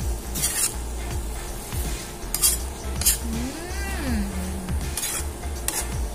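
A metal spatula scraping and tossing sliced bitter gourd and scrambled egg around an aluminium wok, several sharp scrapes over a steady sizzle of oil.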